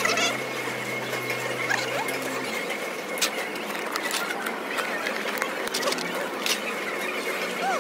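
Airport terminal hall ambience: a steady background wash with a low hum that stops about two and a half seconds in, a few sharp clicks and some short rising squeaks.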